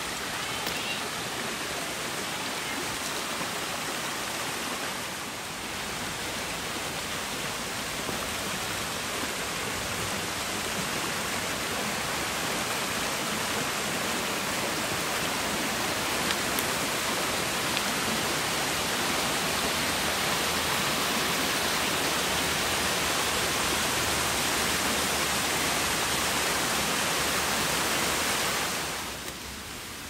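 A small waterfall's falling water makes a steady rushing hiss that grows slightly louder, then drops away a second or so before the end.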